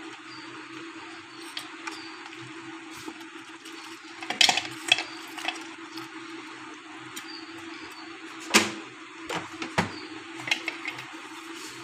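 Small carburettor parts being cleaned over an aluminium pan: scattered clinks and taps of metal on metal, the loudest about four and a half and eight and a half seconds in, with wet brushing and squirts of cleaning fluid over a steady low hum.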